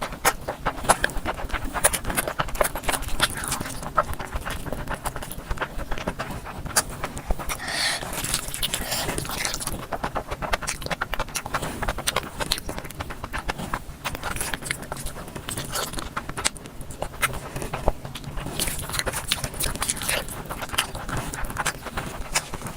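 Close-miked chewing of biryani: continuous wet mouth clicks and smacks, with a brief crackly stretch about eight seconds in.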